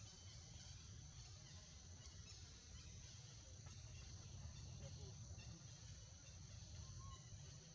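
Near silence: faint outdoor ambience with a steady low rumble and a steady high hiss, and a faint short chirp near the end.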